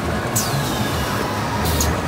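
Dayuan MHK-1650FC automatic die-cutting and stripping machine running: a steady mechanical rumble with short hissing bursts, about half a second in and near the end.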